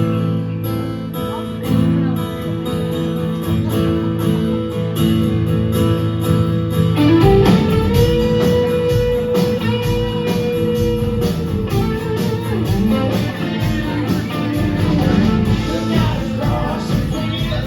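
Live rock band playing a song's instrumental opening: strummed guitars alone at first, then about seven seconds in the bass and drums come in with the full band, and a long held high note rings over them for a few seconds.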